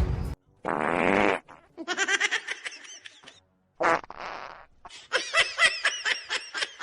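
A short raspy, fart-like buzzing noise, heard twice, with bursts of laughter between and after.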